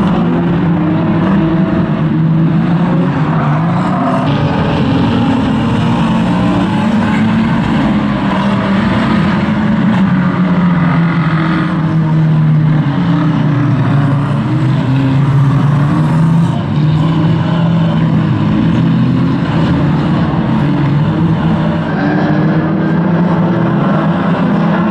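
Engines of several pre-1980 banger racing cars running and revving together on the track, their pitch rising and falling as the drivers accelerate and back off.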